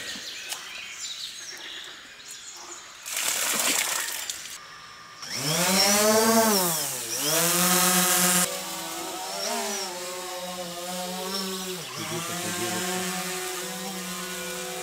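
Small quadcopter drone's motors spinning up about five seconds in as it lifts off, a buzzing whine that rises in pitch, dips briefly, then holds steady. The buzz grows quieter as the drone climbs toward the treetops.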